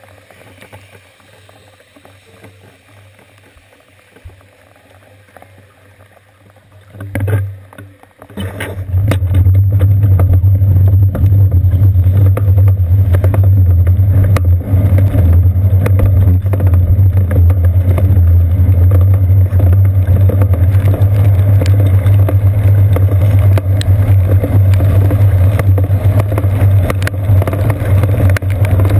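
Low, fairly quiet background for the first eight seconds, then from about eight seconds in a loud, steady low rumble: wind and road vibration on a seat-post-mounted GoPro Hero 2 as the bicycle gets moving on wet pavement in the rain.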